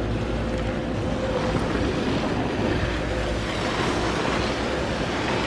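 Wind rushing on the microphone on an open chairlift ride, a steady rumbling noise with a faint steady hum underneath.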